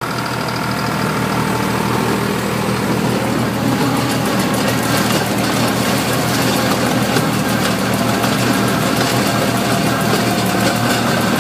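Fendt 207 V tractor engine running steadily at about 1600 rpm under load, driving a 2 m flail mower whose rotor shreds over the ground with a rushing, rattling noise. The mower noise grows louder a few seconds in.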